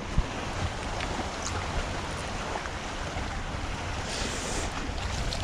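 Steady wind and water noise around a small fishing boat, with wind buffeting the microphone and a single sharp knock just after the start.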